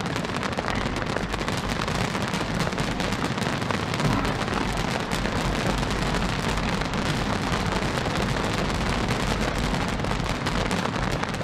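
Fireworks crackling densely and continuously, many small pops running together into a steady rain-like hiss, with one slightly louder pop about four seconds in.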